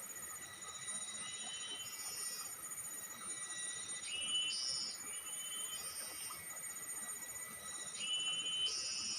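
Outdoor insect chorus: several high-pitched insects trilling at once, some in steady tones and some in fast pulses. Shorter chirping calls come and go every second or two over the top.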